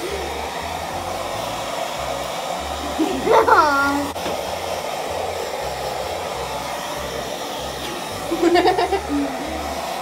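Handheld blow-dryer running steadily at a constant level. Two brief vocal sounds with falling pitch rise above it, about three seconds in and again near the end.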